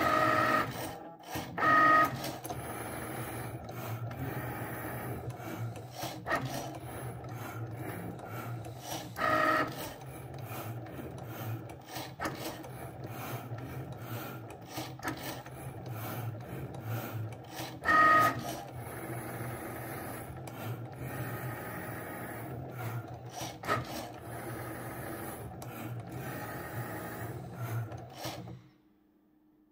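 Cricut Maker 3 cutting machine cutting printed medium cardstock with its fine-point blade: its motors whir steadily under many small clicks, with about four short, louder higher-pitched whines as the carriage moves. The machine stops about a second before the end, the cut finished.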